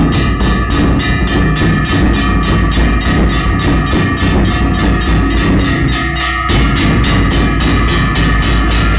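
Nagada kettle drums beaten with sticks in a fast, even rhythm of about five strokes a second.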